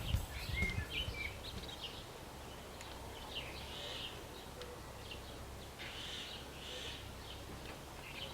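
Faint outdoor background with scattered short bird chirps.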